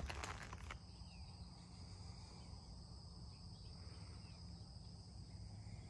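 Faint, steady high-pitched chorus of insects chirring in a rural field. A short clatter of clicks in the first second is the loudest sound.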